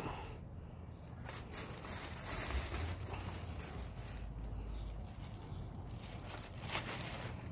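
Faint rustling of a thin plastic shopping bag being handled with a reacher-grabber, with a few sharp clicks and a low rumble between about two and a half and five seconds in.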